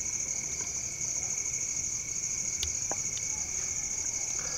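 Crickets chirring steadily in a fast, even high-pitched trill, with a couple of faint clicks about two and a half seconds in.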